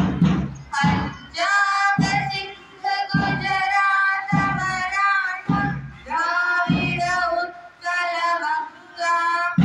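Children's voices singing a slow melodic song together, with held notes over a low beat that falls about once a second.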